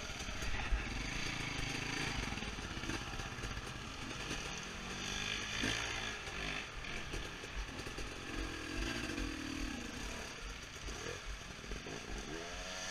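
Enduro dirt-bike engines running, idling with the pitch rising and falling in several revs.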